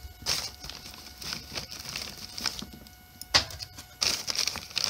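Lumps of smokeless coal being put into a steel firebox: irregular clicks and knocks with rustling between them, and one sharp knock about three and a half seconds in.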